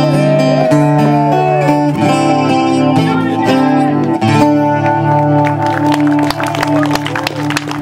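Solo acoustic guitar playing the closing instrumental bars of a song: ringing chords that change every second or two, then lighter strummed strokes as it winds down near the end.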